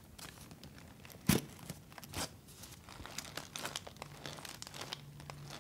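Cardboard Tampax tampon box being handled and torn open: crinkling and tearing of the card, with scattered small clicks and one sharp crack about a second in.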